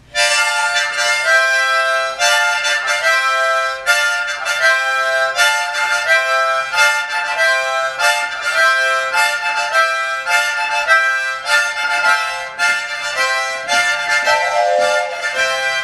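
Several harmonicas played together in a chugging 'harmonica train' rhythm: steady pulses of chords on the in-breath and out-breath, articulated with a 'tutka' tongue sound, alternating between the draw chord and the blow chord.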